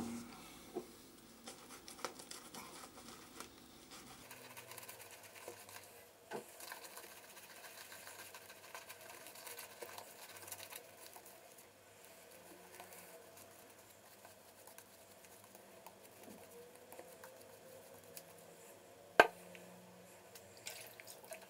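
Semogue 620 boar-bristle shaving brush working Faena lather onto a bearded face for a second pass, a soft scratchy swishing that comes and goes. A single sharp tap near the end is the loudest sound.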